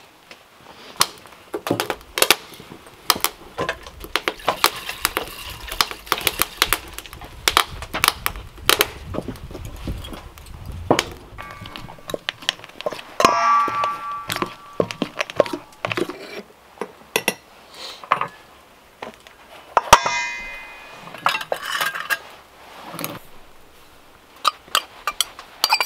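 Small clicks and rustling, then a fork and utensils clinking and scraping in a stainless steel mixing bowl as flour goes in for pastry dough. The bowl rings out briefly about halfway through and again a few seconds later.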